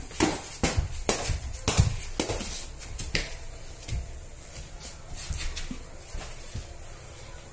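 Boxing gloves landing punches while sparring: a quick flurry of sharp slaps in the first couple of seconds, then a few scattered hits.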